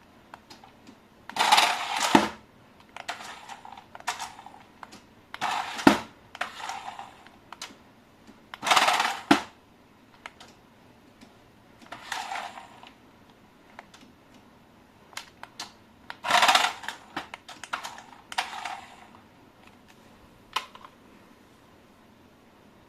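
Unboxing handling noise: about half a dozen short rustling bursts, each under a second, spaced a few seconds apart, with small clicks and taps in between.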